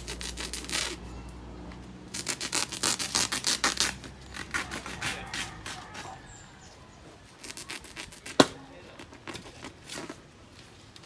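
Quick runs of scraping or rubbing strokes, with a low hum that stops about two seconds in, then a single sharp knock about eight seconds in.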